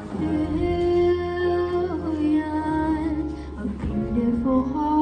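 Music: held sung notes without clear words, over an instrumental backing, the melody moving to new pitches about two seconds in and again near the end.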